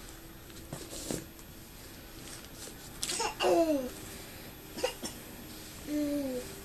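A toddler's short wordless vocal sounds: a loud falling-pitched whine about three seconds in, a brief sound near five seconds and another falling whine near the end.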